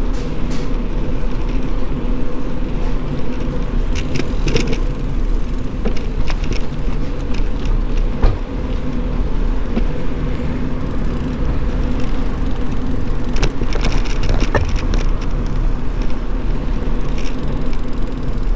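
Bicycle rolling over asphalt and paving, heard from the bike itself: a steady low rumble of tyres with a faint hum, broken several times by short clicks and rattles as the bike goes over bumps.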